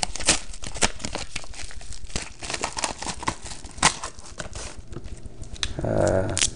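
Packaging crinkling and rustling as trading cards are unwrapped and handled, a dense run of small irregular crackles and clicks.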